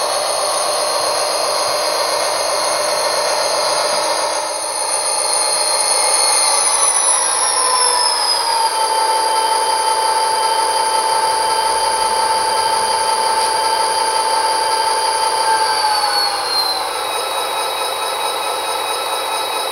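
Model locomotive sound decoder playing an EMD diesel prime mover with a high turbocharger whine through a small sugar-cube speaker. The engine's pitch winds down in two steps, about seven seconds in and again near the end, as the HO-scale SD40-2 slows to a stop.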